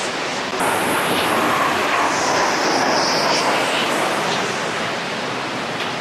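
Steady rushing noise with no clear pitch, spread evenly from low to high, stepping up slightly about half a second in.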